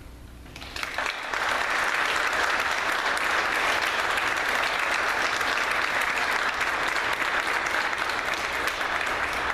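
Audience applauding. It starts about a second in and holds steady to the end.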